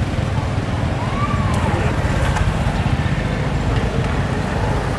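Street-market ambience: a steady rumble of road traffic under a low murmur of voices.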